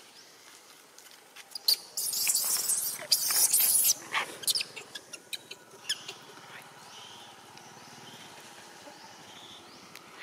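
Long-tailed macaques foraging, with a loud noisy burst about two seconds in that lasts some two seconds, then scattered light clicks.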